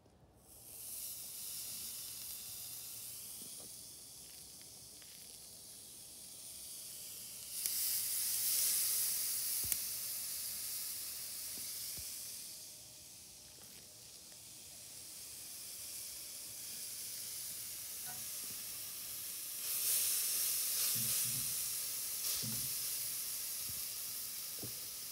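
New York strip steaks sizzling on a charcoal hibachi grill, a steady hiss that swells sharply louder about 8 seconds in and again about 20 seconds in.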